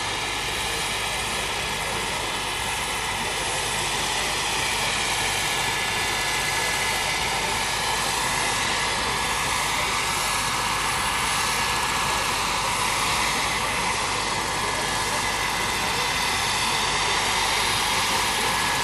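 Turbine-powered radio-controlled scale model of a Bell 412 helicopter flying low: a steady turbine whine over the rotor noise, growing slowly louder.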